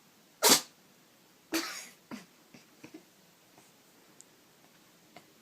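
Cat sneezing twice about a second apart, the first sneeze the louder, followed by a softer short puff.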